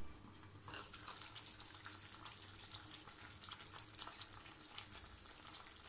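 Thick butter chicken gravy simmering in a pan, its bubbles popping in a faint, steady crackle. There is a short knock right at the start, as the pan's lid goes on.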